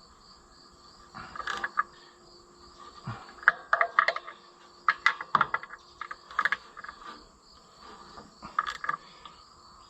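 Ratchet wrench clicking in short bursts, about five in all, as a bolt on the tractor engine is turned back tight. Crickets keep up a faint steady chirring behind.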